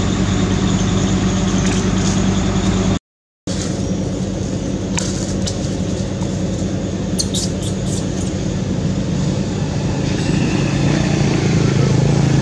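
A motor vehicle's engine running steadily at idle, with a brief drop to silence about three seconds in where the sound cuts, and a few faint clicks in the middle.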